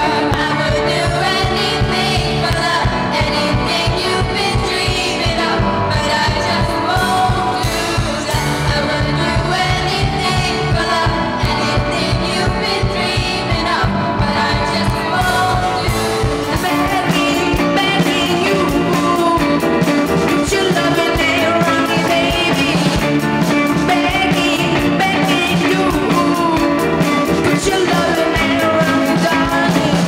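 Live pop song sung by a group of young voices, with piano, violin and band accompaniment over a steady beat.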